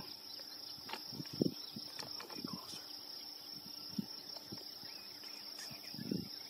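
Insects droning steadily in one high, even tone, with faint scattered rustles and soft knocks close by.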